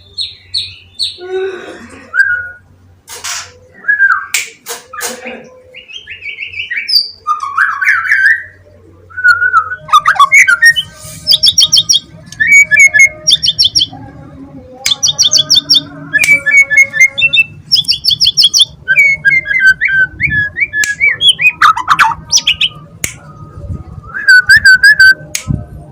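Young white-rumped shama (murai batu) singing a long, varied song of clear sliding whistles, rapid trilled note series and sharp high notes, in loud phrases one after another.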